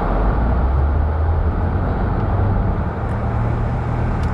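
Car driving: steady engine and road noise, with a low engine hum that rises slightly in pitch as it speeds up.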